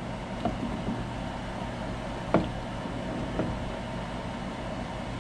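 A sharp click about halfway through and a couple of fainter taps, from a speaker-wire spade connector being pushed onto the terminal of a car-audio speaker. A steady background hum runs under it.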